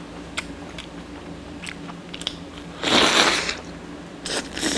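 Biting into and chewing a hand-held bread sandwich topped with egg, bacon and onions: small mouth clicks and crunches, with a loud crunching bite about three seconds in and another shorter one near the end.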